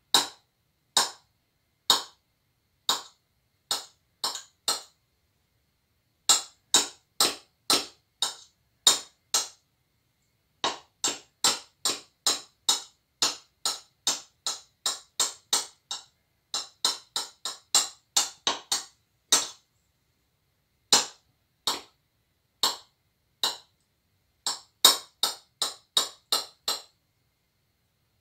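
Kitchen knife chopping boiled eggs on a hard cutting board: sharp clicking knocks in runs of about two to three a second, broken by short pauses.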